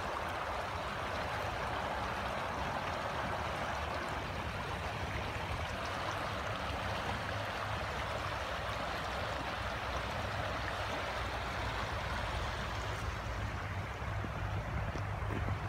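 Steady rush of a flowing river. A low rumble grows stronger near the end.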